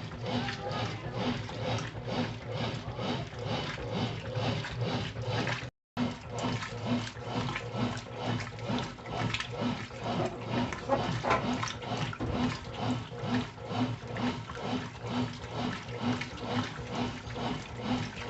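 Brastemp washing machine agitating a load in water: churning and sloshing in an even rhythm of about two to three strokes a second over a steady motor hum. The sound cuts out briefly about six seconds in.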